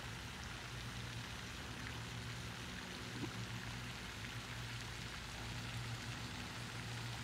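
Steady, rain-like hiss of water splashing from a lake's spray fountain, over a low steady hum.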